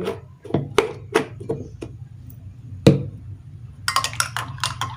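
A spoon clinking in a glass as honey is added: several separate taps, one louder knock just before halfway, then rapid stirring clinks from about four seconds in.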